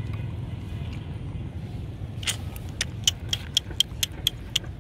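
Low rumble of a passing motor vehicle, easing off over the first couple of seconds. From about halfway, a run of light, irregular metallic clinks, about four a second, comes from a metal chain collar and chain lead as a tethered Rottweiler puppy jumps and pulls against it.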